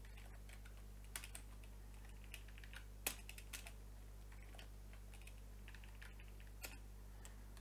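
Computer keyboard typing: faint, irregular keystrokes, a few louder taps among them, over a steady low electrical hum.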